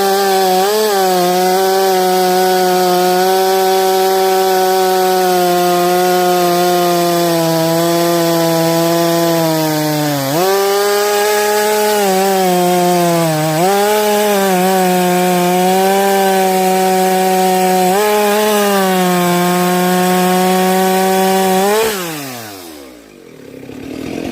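Chainsaw running at full throttle while cutting through a thick log, its pitch dipping three times as the chain bites under load. Near the end the throttle is let off and the engine winds down.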